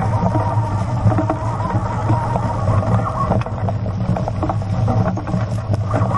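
Dog-drawn cart rolling along a leaf-covered dirt trail: a steady rumble from the wheels and frame, with many small clicks and knocks as it rattles over the ground.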